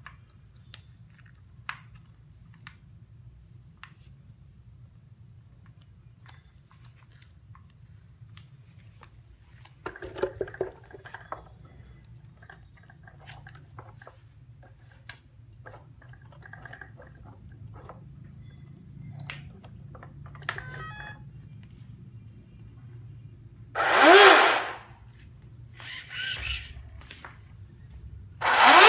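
Faint clicks and clatter of battery leads and plug connectors being handled. Then, near the end, an RC boat's electric motor and propeller drive, out of the water, is throttled up in short bursts: two loud runs about four seconds apart, each revving up and back down, with smaller blips between them.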